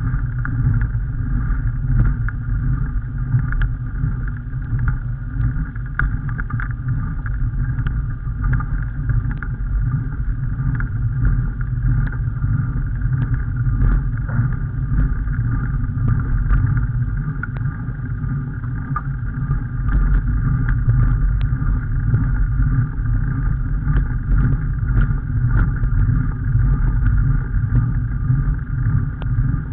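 Steady low rumble of wind and road noise on the microphone of a camera moving along a lane, with faint scattered ticks.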